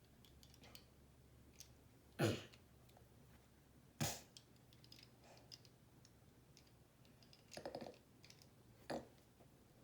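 Lego bricks clicking and rattling as small pieces are handled and pressed together, with a couple of louder sharp knocks about two and four seconds in.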